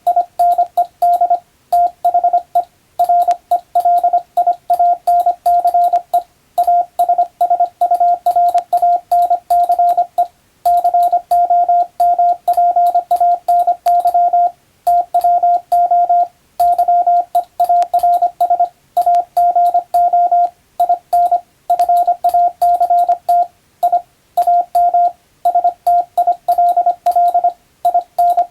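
Morse code (CW) sent as a steady beep near 700 Hz, keyed on and off in quick dots and dashes with short gaps between letters and longer pauses between words. It is English-language telegram practice text sent by a radiotelegraph operator.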